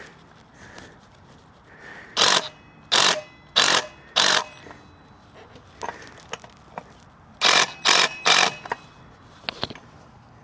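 Power impact wrench run in short bursts, four quick ones and then three more, tightening the nut on a scooter's newly fitted clutch.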